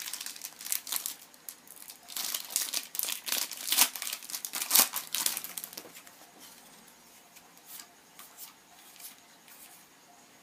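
Foil wrapper of a Yu-Gi-Oh booster pack being torn open and crinkled, with dense crackling for about six seconds. Fainter scattered ticks follow near the end.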